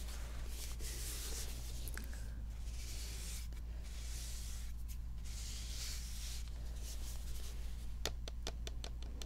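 Fingernails rubbing and scratching over a plastic shampoo bottle in long, soft strokes, then a quick run of sharp fingernail taps near the end.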